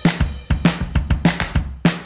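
Upbeat background music with a steady drum-kit beat, about two strong beats a second.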